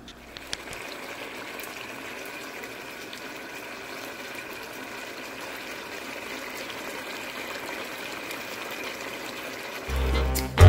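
Saucy stir-fry of meat, green beans and red pepper simmering in a pan: a steady bubbling hiss. Music starts near the end.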